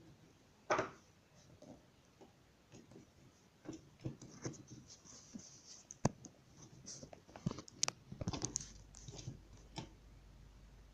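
A long screw being driven into the plastic cover of a Brother laser printer's fuser unit with a screwdriver: faint scratching and small clicks of metal on plastic. One sharp click comes a little past the middle, and a cluster of clicks follows soon after.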